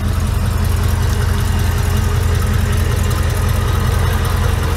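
Chevrolet Silverado's engine idling steadily, heard from underneath the truck. It is left running so the reassembled transmission oil pan can be checked for leaks.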